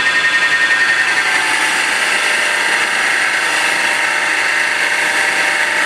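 A mini wood lathe spins a wooden spindle while a flat chisel held on the tool rest cuts it, making a steady high-pitched cutting hiss. The sound flutters quickly in the first second or so, then holds even.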